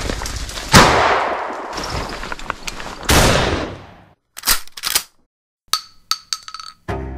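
Gunshot sound effects: two loud blasts, each dying away over about a second, then several light metallic clinks, and music starts near the end.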